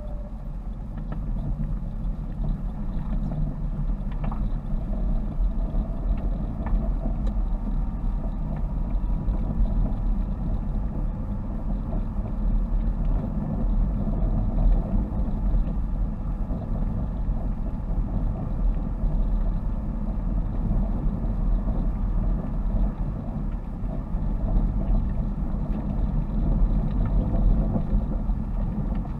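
Car engine and tyre noise heard from inside the cabin while driving steadily, a low drone with a faint wavering engine note. There are two sharp clicks, about four and six and a half seconds in.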